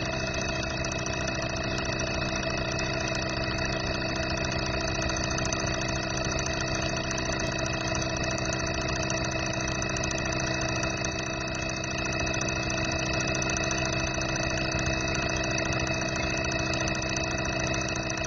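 Fuel injector test bench running with six injectors firing at once. It makes a steady, rapid mechanical buzz over a constant hum, unchanging throughout.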